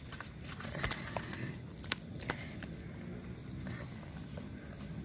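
Quiet handling noise from a hand-held camera: a few sharp clicks and rustles, about one and two seconds in, over a low outdoor rumble and a faint steady high tone.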